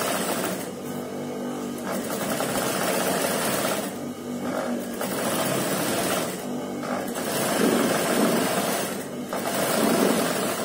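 Industrial sewing machine running in several runs of stitching with brief pauses between them, sewing a second row of topstitching a presser-foot's width from the first around a shirt neckline.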